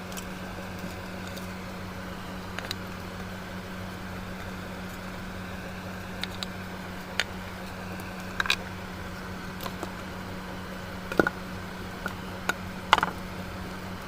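A steady low electrical-sounding hum with scattered light clicks and taps, the sharpest two about eleven and thirteen seconds in.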